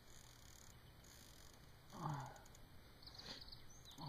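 Near silence: a faint outdoor background, with a short low murmur of a voice falling in pitch about halfway through, and a few faint high chirps near the end.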